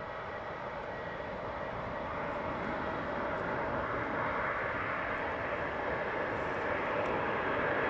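Boeing 747-400's four jet engines on final approach: a steady rushing roar with a faint whine, growing louder as the jumbo draws nearer.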